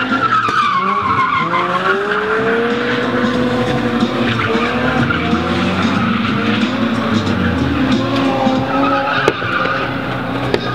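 Drift cars sliding through a corner, engines revving up and down with tyres squealing. A single sharp snap comes about nine seconds in.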